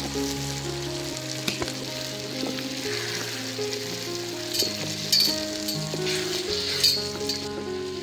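Tomato and egg mixture sizzling and frying in a steel pan over a wood fire. From about halfway through, a wooden spoon stirs it, with a few scrapes and knocks against the pan.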